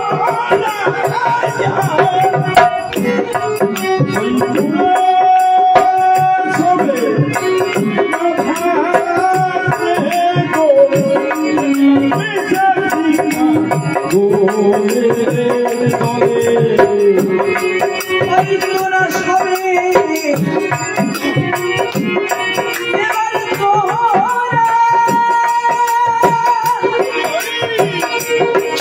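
Live Bengali Matua devotional song: a man's voice singing a held, winding melody through a microphone over harmonium, with rattling percussion and drum keeping a steady rhythm.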